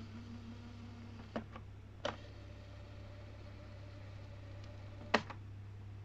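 Cassette transport keys of a Philips AJ3800 clock-radio cassette recorder clicking as they are pressed and latch: a few sharp clicks, the loudest about five seconds in. Under them a steady low mains hum from the set, and in between a faint steady whine from the tape mechanism, winding the tape back.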